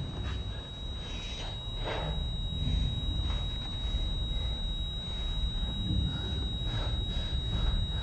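Low, dark rumbling drone of a film soundtrack, with a few soft, brief breath-like sounds over it.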